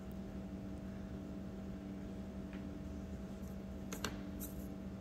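Quiet room tone with a steady low electrical hum and a few faint clicks, the sharpest about four seconds in.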